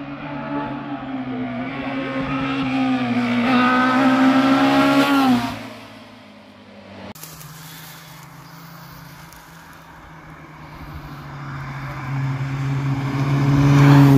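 Rally car engine at high revs passing close, its pitch climbing and dipping between gears, loudest about five seconds in before falling away quickly. After a quieter spell, a second rally car, a Citroën Saxo, approaches with its engine swelling louder near the end.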